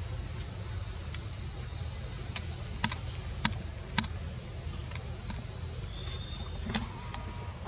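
A steady low rumble with a few sharp clicks scattered through it.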